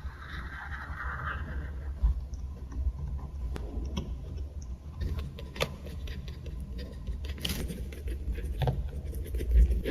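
Journal-making sounds: paper and stickers handled on a desk. A soft rustle at the start, then scattered light clicks and taps, and a brief crisp scrape or peel about three-quarters of the way through, over a steady low rumble.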